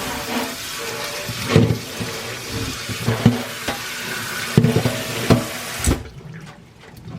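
Kitchen tap water running into a sink, with several knocks of kitchenware against the sink or basin. The water is shut off abruptly about six seconds in.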